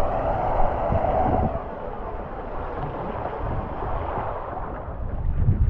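Water rushing down a waterslide chute, with wind buffeting the microphone; the low buffeting grows louder near the end.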